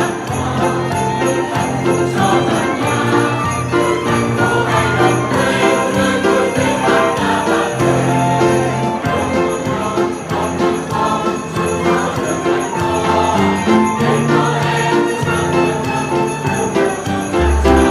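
Music with sleigh bells jingling steadily over a moving bass line and chords.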